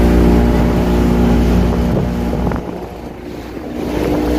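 Speedboat's outboard motor running at speed, with its wake churning behind. About two and a half seconds in it drops off for about a second, then picks up again.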